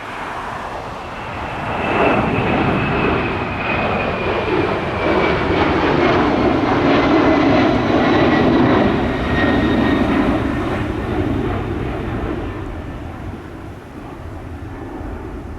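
United Airlines Boeing 767 twin-engine jet passing close by, its engine noise swelling loud for several seconds and then fading, with a whine that slides down in pitch as it goes past.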